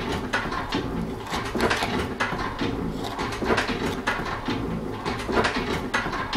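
Paperboard candy box being folded by hand: irregular crackles and clicks as creases bend and flaps are tucked in, over a steady low hum.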